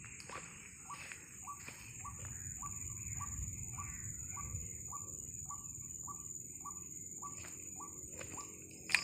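White-breasted waterhen (ruak-ruak) call, a short note repeated evenly about twice a second, over a steady high whine. A sharp click near the end is the loudest sound.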